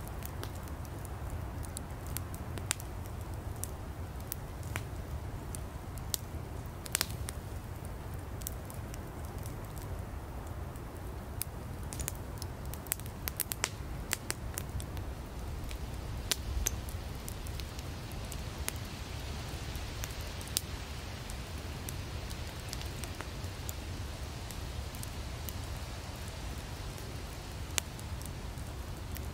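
Wood fire burning: a steady low rumble of flames under frequent sharp crackles and pops from the firewood, thickest around the middle.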